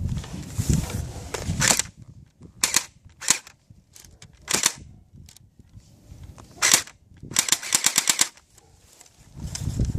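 Airsoft guns firing: sharp single shots spaced a second or so apart, then a rapid burst of about eight shots near the end. A low rumble fills the first two seconds.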